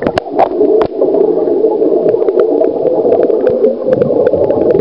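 Splashing as the camera goes under, then a loud, muffled, steady bubbling rush of water and air bubbles heard from underwater, with scattered small clicks.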